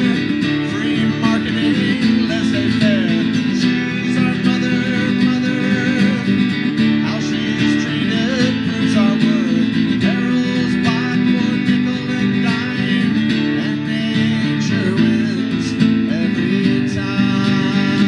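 A man singing while strumming an acoustic guitar.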